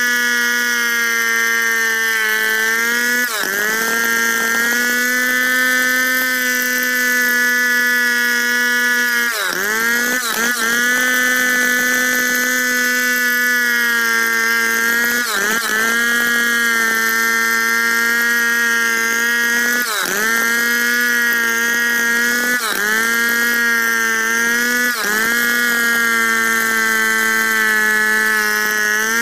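Large Stihl two-stroke chainsaw at full throttle, ripping lengthwise through a squared log. Its high, steady pitch briefly sags and recovers about seven times as the chain bogs under load in the cut.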